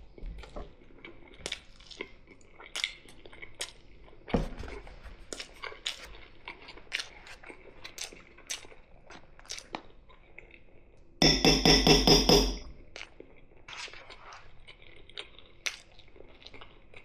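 Close-miked chewing and crunching of food, with a steady run of small wet clicks and crackles from the mouth. About eleven seconds in, a much louder buzzing sound lasts about a second and a half.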